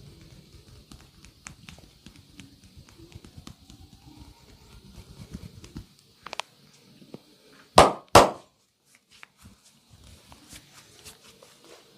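Hands tapping rapidly and rhythmically on a body, as in percussive massage, for about six seconds. After a short pause come two loud, sharp impacts about half a second apart.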